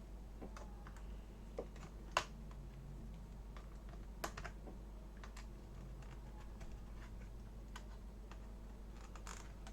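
Scattered small clicks and taps of a laptop's Wi-Fi antenna cable being worked onto its tiny connector on the wireless card, with one sharper click about two seconds in, over a low steady hum.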